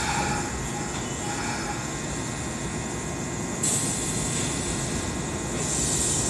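Kintetsu electric train standing at a station platform just after arriving, with a steady rumble and hum. A sudden high hiss sets in about three and a half seconds in.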